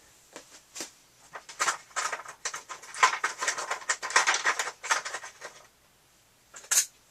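Small metal parts and a measuring tool being handled on the bench while a bore is checked: scattered clicks, taps and scraping rustles, busiest in the middle, with one sharp click near the end.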